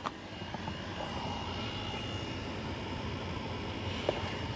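A steady mechanical drone with a thin, steady high whine above it, and one light tick about four seconds in.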